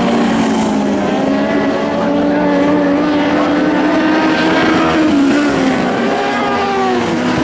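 Several winged lightning sprint cars' engines running together on a dirt speedway oval, their overlapping notes rising and falling as they circle the track.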